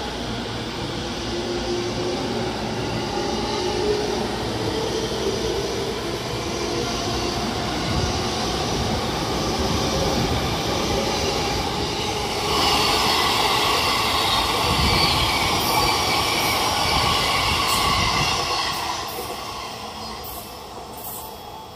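JR Chūō-Sōbu Line local electric train (E231 series) pulling out of the station. Its traction-motor whine rises in pitch as it picks up speed. About halfway through, the wheel-on-rail noise grows louder and higher, then fades away in the last few seconds as the last cars leave.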